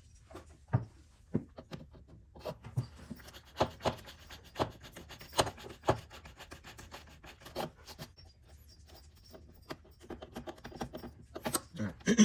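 A hand tool scraping and rasping at the edge of a freshly drilled hole, enlarging it, in irregular short strokes with sharp clicks and no motor running.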